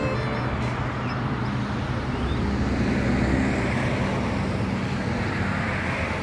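Motor vehicle running on a road: a steady low engine hum under road and wind noise, swelling slightly around the middle.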